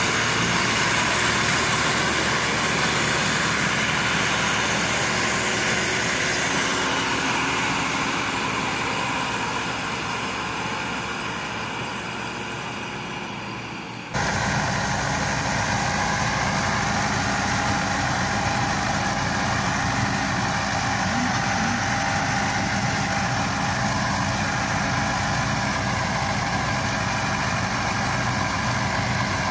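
Massey Ferguson tractor diesel engines working hard in a chained tow, hauling a stuck MF 385 and its loaded trolley out of mud, the sound slowly fading as they move off. After a sudden cut about halfway, an MF 385's diesel engine runs steadily under load, driving a wheat straw chopper.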